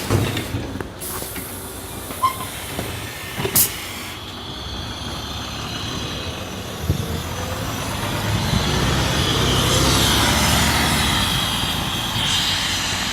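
Inside a city bus: a hiss of compressed air with a few knocks, then the bus's engine and road noise building as it picks up speed.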